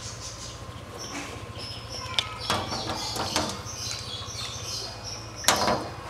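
Scattered clicks and knocks of a screwdriver against a washing machine's casing while it is worked at the back panel, the sharpest knock about five and a half seconds in. A steady low hum runs underneath.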